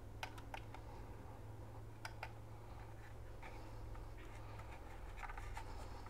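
Faint scattered clicks and light scraping as a small T4 Torx screwdriver turns a screw into the drone's plastic mount, over a steady low hum.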